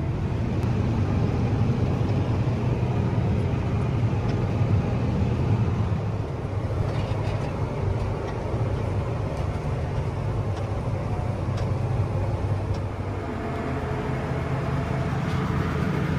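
Combine harvester running steadily in the field: an even, low engine drone with machinery noise over it.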